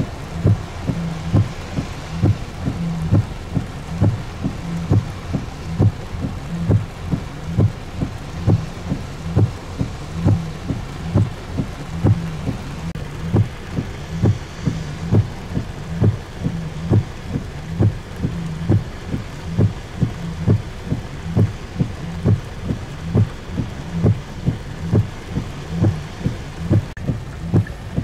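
Heavy rain falling steadily, with a regular low thumping about one and a half times a second throughout.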